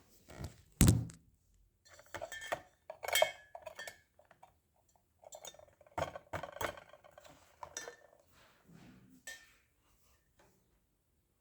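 Scattered clinks and knocks of hard objects being handled: one sharp knock just under a second in, then irregular clusters of lighter clinks, dying away in the last couple of seconds.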